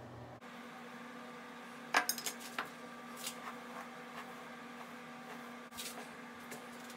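A few light clicks and clinks, the loudest about two seconds in, over a faint steady hum.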